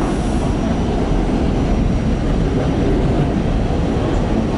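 Train running, a steady loud rumble of wheels and car noise with no break.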